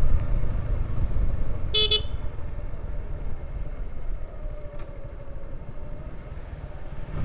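Motorcycle under way, a steady low rumble of engine and wind that grows quieter as the bike slows. About two seconds in, a vehicle horn gives one short toot.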